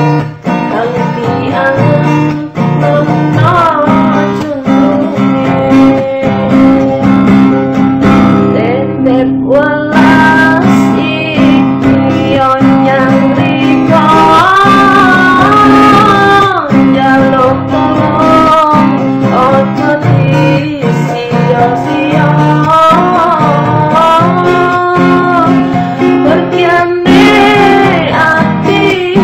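A woman singing a slow song over guitar accompaniment, with the guitar chords under a wavering sung melody.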